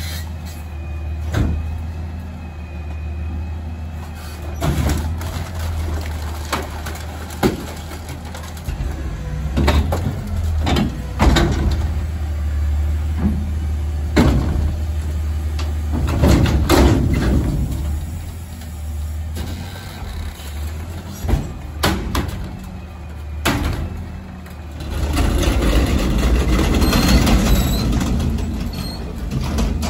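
Peterbilt 520 CNG garbage truck with a McNeilus rear-loader body running steadily. Sharp metal clanks and bangs come at irregular moments as steel dumpsters are handled and emptied at the hopper. Near the end a louder stretch of several seconds sets in, typical of the engine throttling up to run the packer hydraulics.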